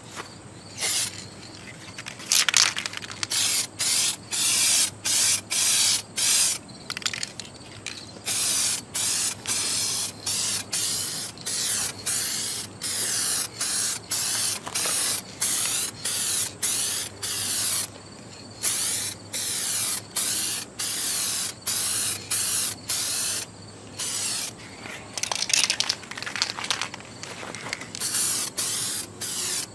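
Clear coat being sprayed onto a car's repaired quarter panel in many short hissing bursts, about one or two a second, each pass cut off before the next.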